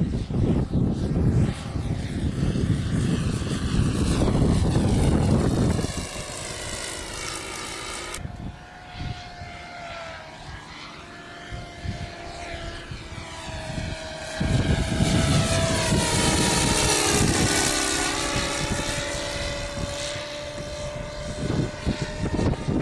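Radio-controlled Cessna 337 Skymaster model plane in flight: a steady propeller drone whose pitch drifts up and down as it passes and flies away. A loud low rumble covers it for the first few seconds and again from past the middle.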